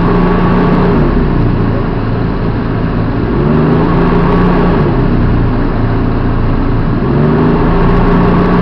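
Hägglunds Bv206 tracked all-terrain carrier's engine running loud, heard from inside the cab, its pitch rising and falling a few times as the throttle changes while it drives through floodwater, over a steady rushing noise.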